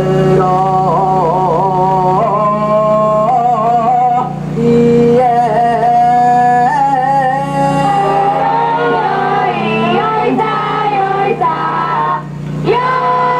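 A man singing an ondo-age festival float chant solo, holding long notes with a wavering, ornamented pitch.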